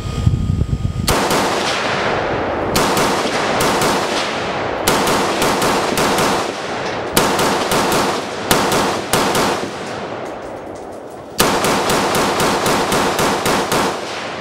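IWI Galil ACE Gen II rifle in 5.56 mm fired in a long string of rapid single shots, about two to three a second, each report trailing into a short echo. After a brief lull about two-thirds through comes a final quicker string.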